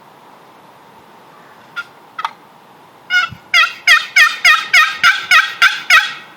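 Wooden turkey box call run in a fast series of loud yelps, about three notes a second for some three seconds, after two soft opening strokes, to strike a gobbler into answering.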